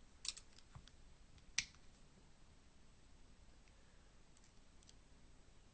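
Small, sharp metal clicks from a Diana T06 air-rifle trigger unit being worked by hand and adjusted with a small screwdriver. There is a quick cluster of clicks early on and a single louder click about a second and a half in, then faint ticks near the end.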